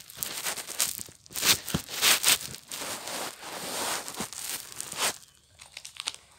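Crinkly plastic wrapper of a small toy packet being crumpled and torn open by hand, a dense crackling for about five seconds that then drops to a few faint ticks.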